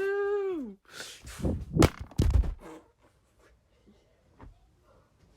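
A person's high-pitched, long-held yell that slides down in pitch and breaks off under a second in. It is followed by a few short noisy bursts and thumps, then quiet.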